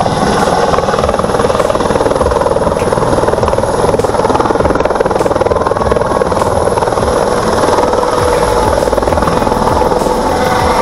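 Helicopter lifting off and climbing away close by: a loud, rapid rotor chop over a steady engine whine.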